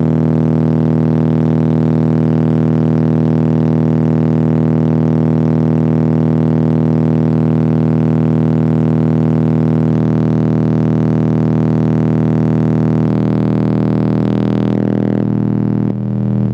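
A 40 Hz bass test tone played loud through the car audio system's DC Audio 5.0K-driven subwoofer setup. It comes across as a steady, buzzy drone with many overtones, and over the last few seconds it shifts in steps. The amplifier's gain is set so that the tone clips slightly at the top end.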